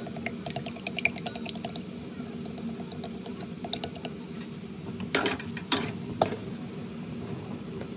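Eggs being beaten with chopsticks in a bowl: a fast, even clicking of the sticks against the bowl's side for the first second or so, with a short spell more just before the middle. A few louder clatters follow about five to six seconds in, over a steady low hum.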